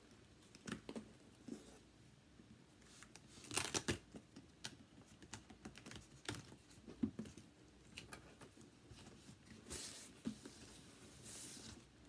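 Duct tape being torn, peeled and pressed onto a cardboard box, with faint crinkling and scattered clicks of handling. Two louder stretches of tearing come about three and a half seconds in and again around ten to eleven seconds.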